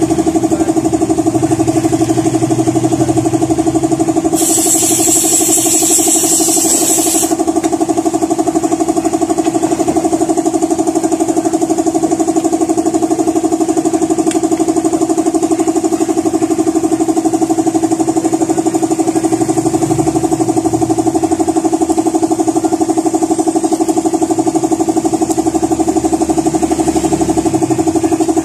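A motor running steadily with a constant hum. About four seconds in, a hiss sounds for about three seconds.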